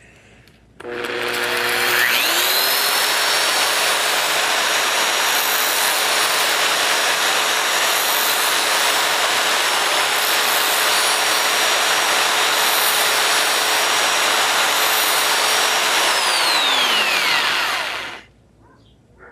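Corded DeWalt drill sharpening a knife: it starts about a second in, spins up to a steady high whine with a loud grinding hiss, then is switched off near the end and whines down to a stop.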